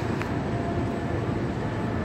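Church bells ringing faintly, their tones hanging over a steady low city rumble.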